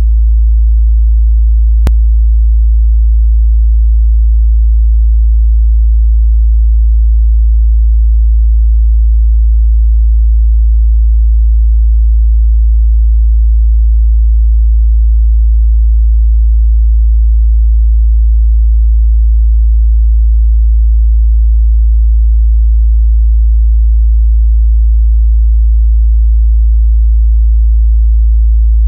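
A steady 55 Hz sine-wave test tone held at one constant level, a signal for checking how a subwoofer or car audio system reproduces very low bass. A faint click about two seconds in.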